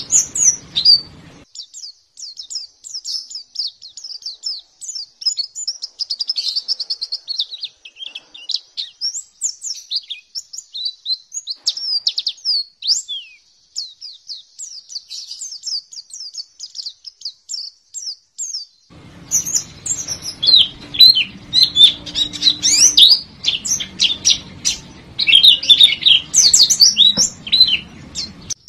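White-eye (pleci) singing a continuous, rapid twittering of short high chirps and trills. About 19 seconds in, the twittering turns denser and louder, over a faint low background hum.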